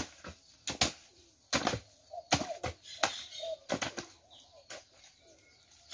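Steel hoes chopping into and scraping through heaped damp earth as it is mixed into mud for adobe bricks. The strokes are irregular, roughly two a second.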